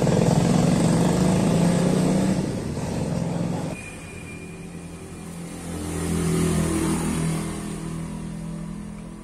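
A motorcycle engine running nearby: steady at first, dropping off sharply about four seconds in, then revving up briefly around six seconds and fading away.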